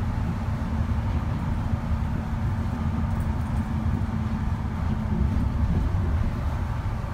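Kobe Port Liner, a rubber-tyred automated guideway train, running at speed, heard from inside the car: a steady low rumble with a faint steady hum above it.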